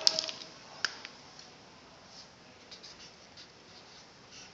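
Marker pen writing on paper: a few sharp taps in the first second, then faint short scratchy strokes as letters and numbers are drawn.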